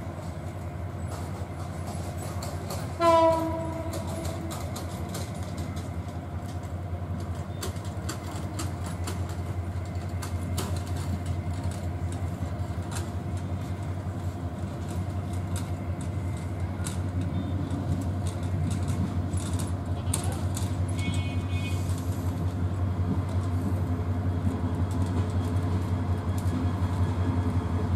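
Bangladesh Railway Class 2900 diesel-electric locomotive approaching slowly, its diesel engine humming steadily and growing louder as it nears, with one short horn blast about three seconds in.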